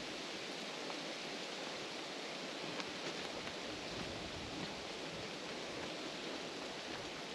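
Wind rustling the leaves of the trees, a steady, even rush, with a few faint ticks.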